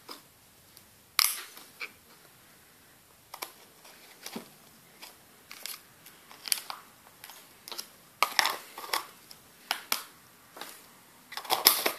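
Irregular small plastic clicks and taps from a cosmetic jar's plastic spatula and clear inner lid being handled, the spatula clipped into the lid and the lid pressed onto the jar, with a sharper click about a second in and a quick run of clicks near the end.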